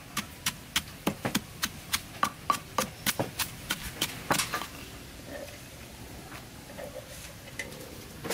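Wooden pestle pounding chilies, garlic and salt in a stone mortar: a regular run of sharp knocks, about three to four a second, that stops about four and a half seconds in.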